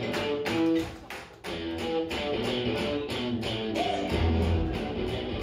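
Recorded music playing over a PA: a guitar-led track with a heavy bass coming in near the end.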